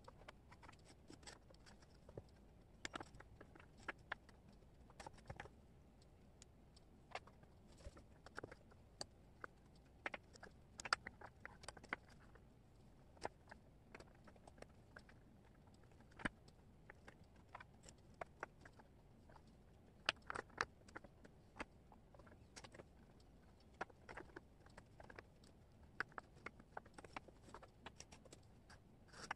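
Wooden jigsaw puzzle pieces being picked up, shuffled and set down on a cork board: scattered faint clicks and taps, sometimes several close together, over quiet room tone.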